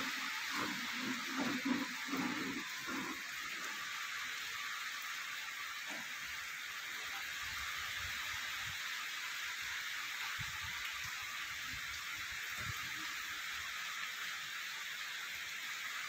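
Heavy rain falling steadily as an even hiss, with a few low thuds in the first three seconds.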